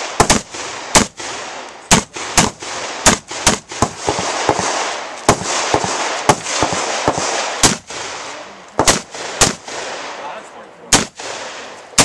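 Rifle fire: a long string of about twenty loud, sharp shots at an uneven pace, some in quick doubles and fast runs, with a pause of a second or more near the end before two more shots.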